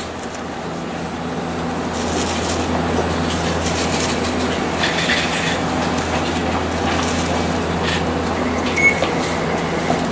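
Steady low hum and rumble inside a Hiroshima Electric Railway 800-series tram, heard binaurally, with no speeding up or slowing down. A short high beep sounds about nine seconds in.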